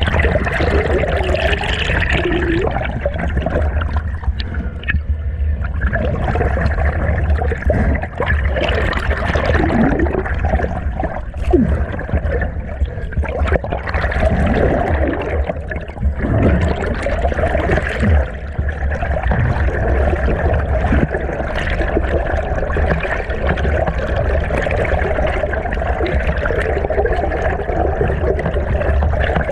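Stream water rushing and gurgling as picked up by a camera held underwater: a muffled, steady wash with a low rumble and occasional short bubbling gurgles.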